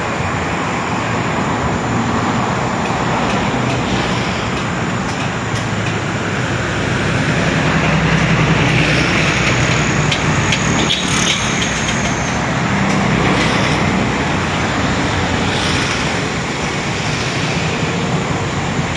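Road traffic: a steady rush of passing vehicles, swelling about eight seconds in as one passes close.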